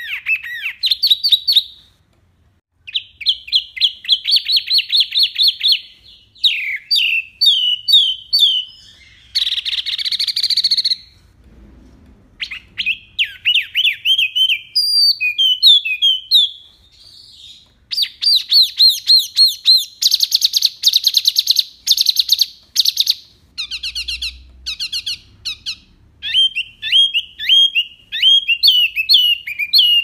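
Caged wambi songbird singing a loud, varied song: rapid runs of repeated short whistled notes and trills in quick succession, broken by brief pauses, with a short harsh raspy phrase about ten seconds in.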